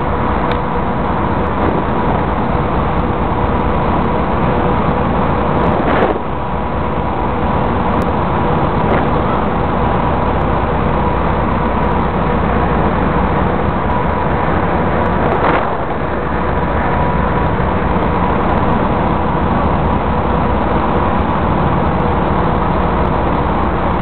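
Steady loud rush of a ferry's engines, wind and water heard from the open deck, with a constant hum running under it.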